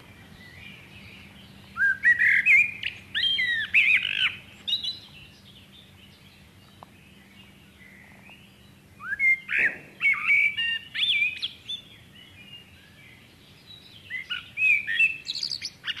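Common blackbird singing: three song phrases of notes sliding up and down, several seconds apart, the first starting about two seconds in.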